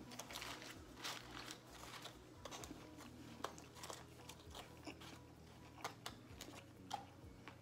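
Close-miked chewing of crispy fried Wingstop chicken wings: faint, irregular crunches and small mouth clicks as the food is chewed with the mouth closed.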